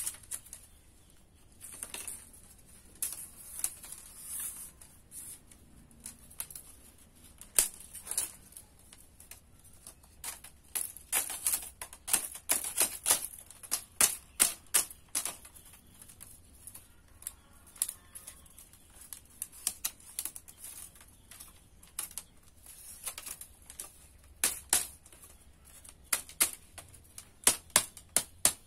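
Thin bamboo strips clicking and clacking against each other in irregular runs of sharp taps as they are handled and woven by hand.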